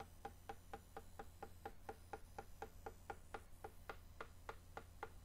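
Faint, even ticking, about four ticks a second, each tick short with a slight pitch to it.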